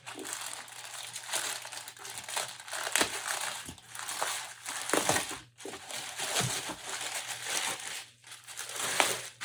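Plastic courier bag crinkling and rustling in uneven bursts as it is handled and opened.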